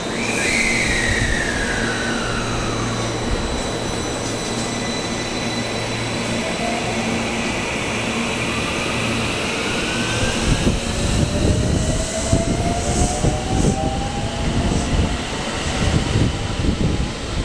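JR West 223 series 2000 electric train pulling away, its inverter-driven traction motors whining. One pitch falls over the first few seconds, then several pitches rise slowly as it gathers speed. Rumbling wheel and rail noise grows louder in the second half.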